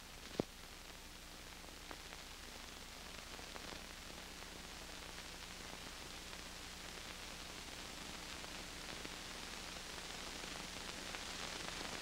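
Steady hiss of an old film soundtrack with a faint low hum and a few scattered clicks, the hiss slowly growing louder.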